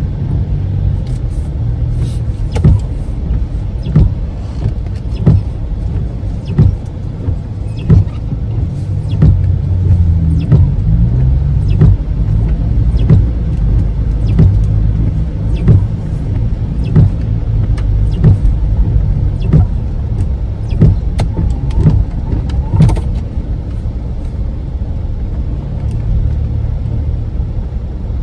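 A car driving steadily, with a continuous low rumble of engine and road noise. Short knocks recur at a fairly even pace, about one every second and a half.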